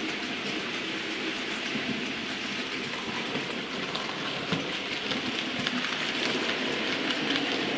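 Hornby OO-gauge model of the LMS Coronation-class locomotive hauling a rake of loaded freight wagons: a steady rushing clatter of small metal wheels running on the rails and over points, growing slightly louder as the train comes nearer.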